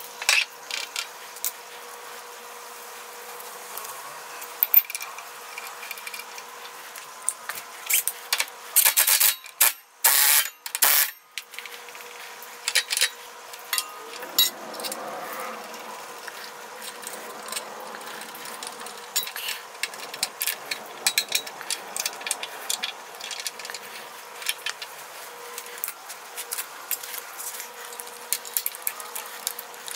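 Hand tools and small metal engine parts clicking, tapping and clinking as parts are fitted to a small engine by hand. A burst of louder knocks comes about 9 to 11 seconds in, and a faint steady hum runs underneath.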